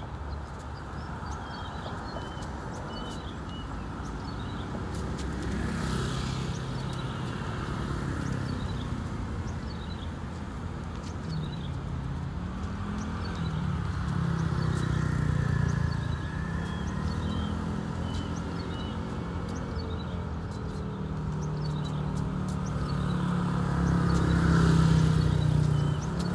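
Road traffic: vehicle engines running and passing, their pitch rising and falling, loudest near the end. Small birds chirp repeatedly over it.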